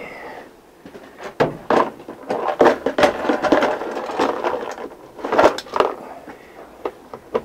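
A plastic tub being handled and pressed against the inside of a windshield: a run of clattering knocks and scuffs, loudest about a third of the way in and again near two-thirds.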